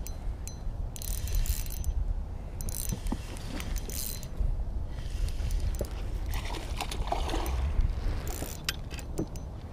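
Spinning reel being cranked in bursts to reel in a hooked largemouth bass, with a splash from the fish at the surface near the end.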